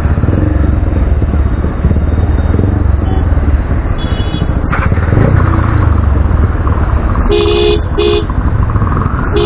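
Single-cylinder engine of a Bajaj Pulsar rebuilt to 220 cc and fitted with an SC Project aftermarket exhaust, running at low revs in slow traffic with a steady low rumble. A vehicle horn honks twice near the end.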